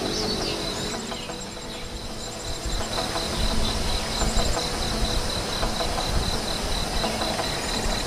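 Insect chirping in an even, rapid pulse at one high pitch, with a few short, very high trills and a low rumble that grows from about two and a half seconds in.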